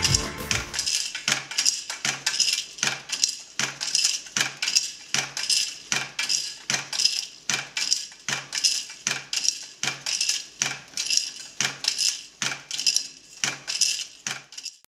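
Traditional wooden hand loom weaving silk tsumugi: a steady rhythm of sharp clacks, each with a short low thud, roughly two to three a second, as the shuttle passes and the beater packs the weft. Background music fades out about a second in.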